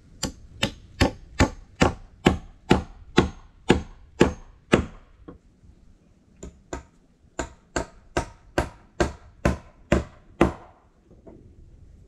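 Axe striking the wood of a log roof in a steady series of sharp blows, about two and a half a second: a run of about a dozen, a pause with two lighter taps, then about eight more.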